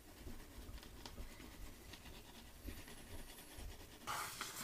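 Toothbrush scrubbing teeth: faint, scratchy brushing, with a louder stretch of brushing near the end.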